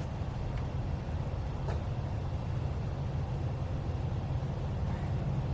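Steady low rumble of strong wind buffeting the microphone, with a couple of faint clicks in the first two seconds.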